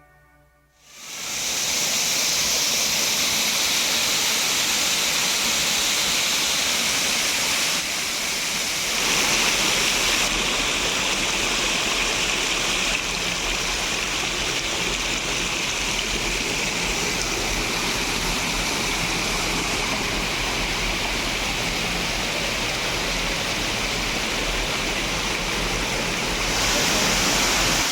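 Steady rushing of water pouring over small tiered waterfalls on a clear river. It starts about a second in, and its tone and loudness change abruptly several times.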